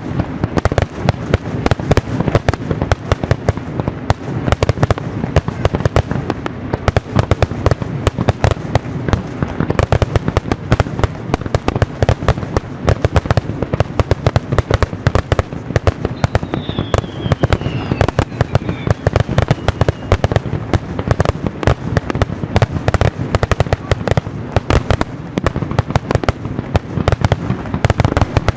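Fireworks display: aerial shells bursting and crackling in a rapid, continuous barrage of bangs with no let-up. A faint falling whistle sounds a little past halfway.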